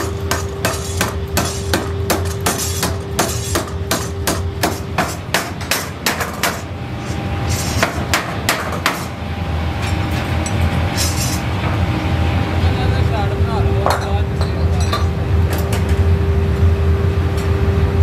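Forging power hammer striking a hot steel axle-shaft blank in a fast, even series of blows, about three a second, stopping about six seconds in. A few more blows follow, then the hammer's machinery runs with a steady hum and occasional clinks of metal on metal.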